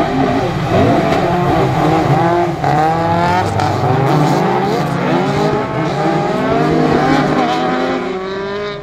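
Several rallycross cars racing in a pack on a wet track, their engines revving hard and rising and falling in pitch through throttle changes and gearshifts, over a steady hiss of tyres and spray. The noise eases a little near the end as the pack moves away.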